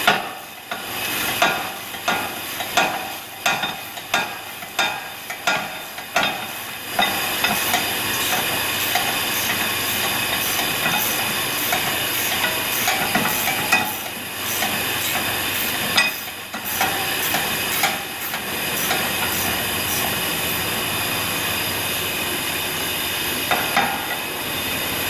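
Metal tool work at a car's rear brake hub: sharp clicks and knocks about one or two a second for the first seven seconds, as a wrench and the rotor are handled. Then a steady hiss with a few small knocks to the end.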